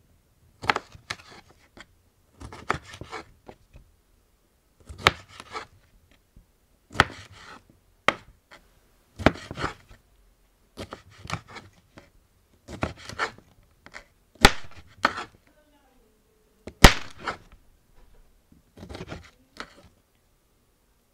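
Kitchen knife chopping a cucumber on a wooden cutting board: short runs of crisp knocks as the blade cuts through and strikes the board, in about ten bursts roughly two seconds apart.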